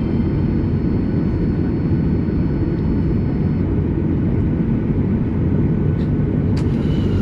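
Cabin noise of a Boeing 737 on the ground with its CFM56 jet engines running at idle: a steady low rumble with a faint high whine that stops about halfway. A single sharp click comes near the end.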